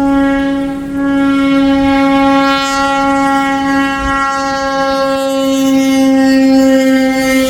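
Locomotive air horn sounding one long, loud, steady blast, easing briefly about a second in.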